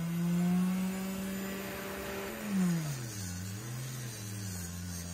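Small bench grinder motor running with a steady hum as it finishes spinning up. About two seconds in the pitch drops and wavers as the knife blade is pressed against its fabric buffing wheel, loading the motor.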